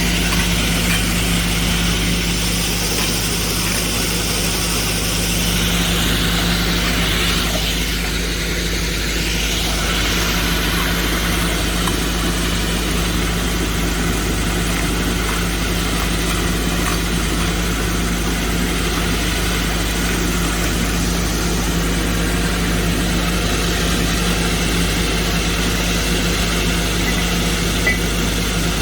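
Excavator engine and hydraulics running steadily under load while an excavator-mounted hydraulic core drill bores into rock, giving a continuous low drone.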